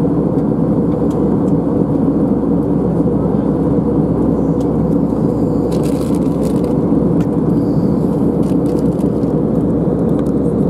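Steady drone of a jet airliner cabin at cruise: engine and airflow noise heard beside the window. A brief faint crackle comes about six seconds in.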